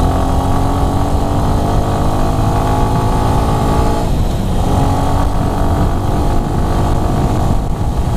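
Motorcycle engine accelerating under way, its pitch climbing steadily, dropping about four seconds in and climbing again.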